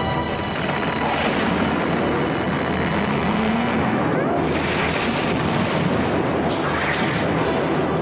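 Science-fiction drama soundtrack: a dense rumbling, blast-like noise over a steady low hum, with louder noisy surges about halfway through and again shortly before the end.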